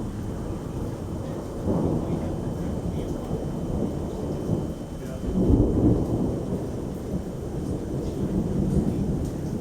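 Thunder rumbling through steady rain during a strong thunderstorm. The rumble swells about two seconds in and again, loudest, around five and a half seconds in.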